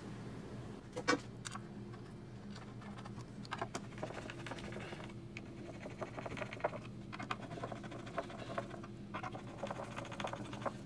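Irregular small clicks, taps and scratches of a woofer being handled and fitted back into a speaker cabinet, with one sharper click about a second in, over a steady low hum.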